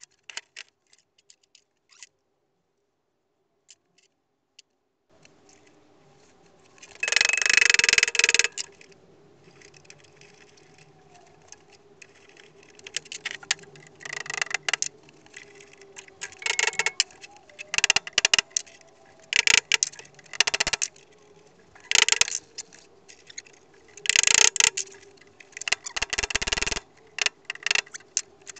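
Metalworking on steel strip in the workshop: about a dozen loud bursts of metal noise, the first and longest about seven seconds in, over a steady low hum. The first five seconds are nearly silent.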